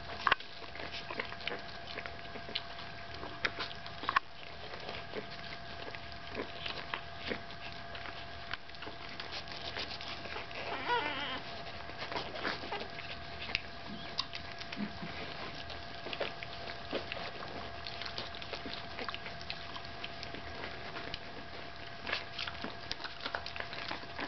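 Staffordshire Bull Terrier puppies suckling from their mother: a steady run of small wet clicks and smacks, with a short wavering puppy whine about ten seconds in.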